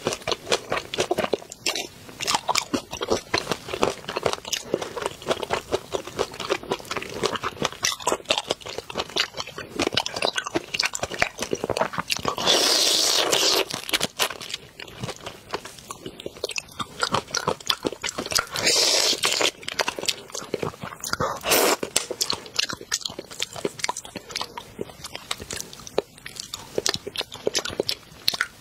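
Close-up eating of spicy chili-sauced shrimp: dense, irregular biting, crunching and wet chewing of the shells and meat. A longer, louder noisy burst comes about halfway through, and two smaller ones come later.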